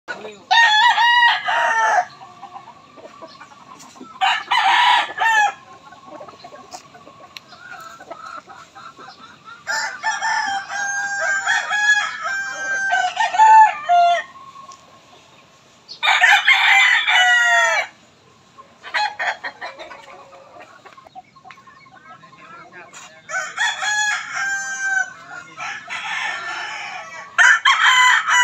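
Roosters crowing again and again, each crow about two seconds long, some overlapping into a longer stretch midway through.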